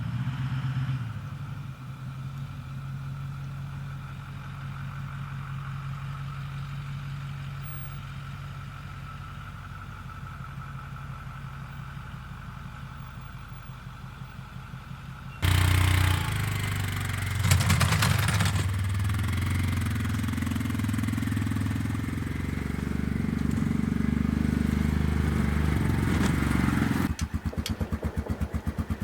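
An engine running, idling steadily at first. About halfway through, the sound jumps abruptly to a louder engine that surges briefly. Near the end it settles into a fast, even chugging.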